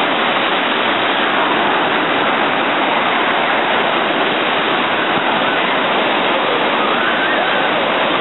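Ocean surf breaking and washing through the shallows: a loud, steady rush of water.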